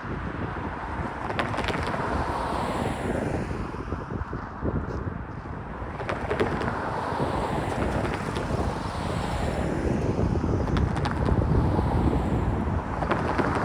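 Freight train cars of a grain train rolling past, with a steady low rumble that swells and fades and occasional sharp clicks from the wheels.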